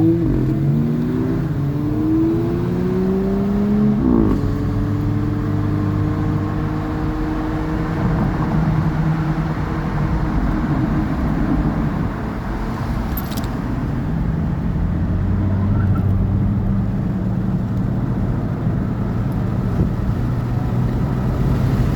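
Car engine accelerating, its pitch rising for about four seconds, then dropping at an upshift and holding steady at cruising speed, with road and tyre noise underneath.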